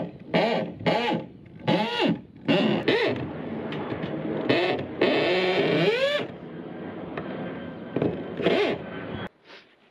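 Corded electric drill boring into a timber post, run in short trigger pulses: a string of whirs that rise and fall in pitch, a longer run in the middle, one more short burst near the end, then it cuts off suddenly.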